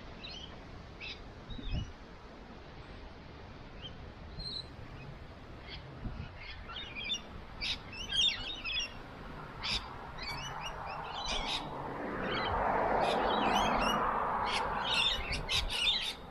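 Birds chirping repeatedly in short high calls, growing busier about a third of the way in. Near the end a rushing noise swells up and fades away, the loudest thing here.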